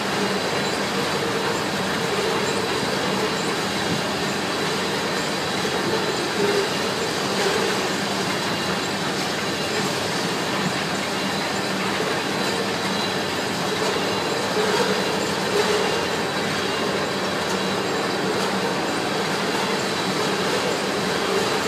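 Freight train of loaded oil tank cars rolling past at close range: a steady rumble and rattle of steel wheels on rail. A thin, high, steady tone runs over it throughout.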